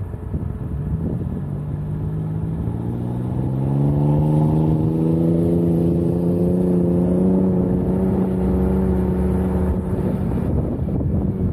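Renault Koleos engine revving up over a few seconds, then held at high revs while driving through sand, easing off near the end. Wind noise on the microphone.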